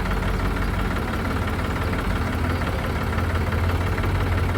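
Heavy diesel engine idling steadily, a low, even knocking drone.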